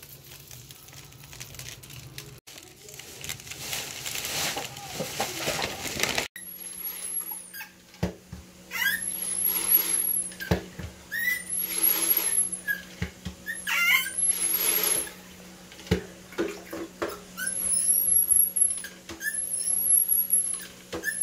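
Dry brown rice pouring through a steel funnel, a soft rattling hiss. Then, after a cut, a plastic spin mop pumped in its bucket: about six spins, each a swish of water with a thin high whine that rises, holds and dies away, with a few sharp knocks of the handle.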